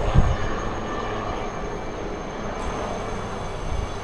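Helicopter flying overhead, giving a steady rotor and engine noise, with a brief low thump right at the start.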